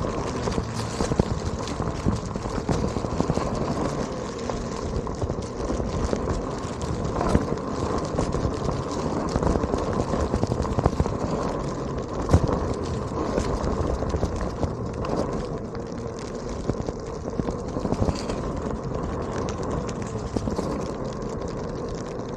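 Onewheel electric board rolling over a rough, gravelly surface: a continuous rumble peppered with frequent sharp clicks as small rocks are kicked up and strike the board and rider, over a steady hum.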